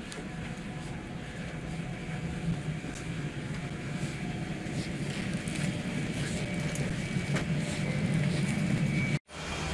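Steady air-conditioning and ventilation hum inside a parked Boeing 787 cabin, with light knocks and clicks. The hum grows louder toward the forward door and cuts off abruptly near the end.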